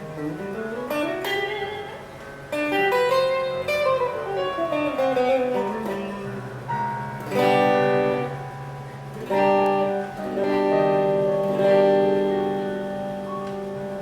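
PRS SE Custom electric guitar played on its neck pickup (85/15 S humbucker) through a Mesa Rectoverb 25 amp. It plays a run of single notes, then chords struck three times in the second half and left to ring.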